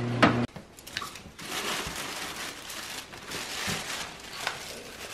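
Tissue paper crinkling and rustling as new shoes are unwrapped from a shoebox, with a few light taps of handling.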